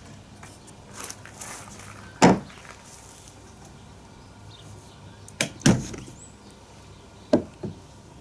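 Short wooden knocks as steam-bent timber cap strips and clamps are handled on a wooden bending form and table: a sharp one about two seconds in, then two pairs of knocks later on.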